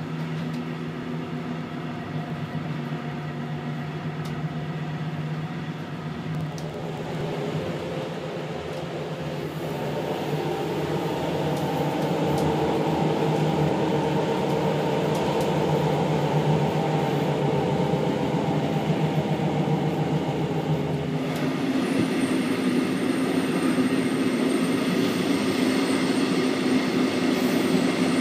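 Steady running noise of a block-braked Halberstädter compartment coach heard from inside the compartment: a continuous rumble of wheels on rail with a low hum. It grows louder and brighter about twenty seconds in.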